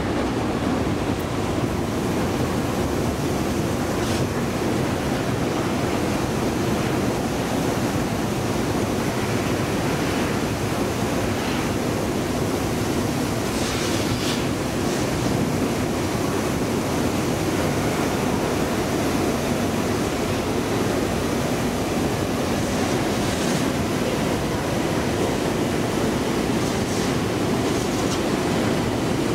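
Steady, even rumbling noise of a long metro escalator running while being ridden, with a few faint, brief higher sounds scattered through it.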